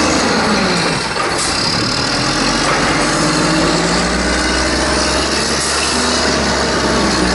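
Engine of an LNG-powered 1994 WhiteGMC WX-64 garbage truck running as the truck moves along the curb. Its pitch falls over the first second, then climbs slowly as it pulls ahead.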